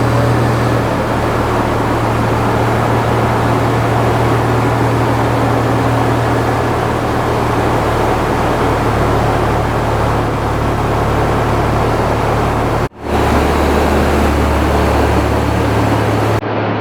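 A car engine running steadily, a low hum under a noisy rush. About 13 s in the sound cuts out for an instant and comes back with the hum lower, then stops abruptly near the end.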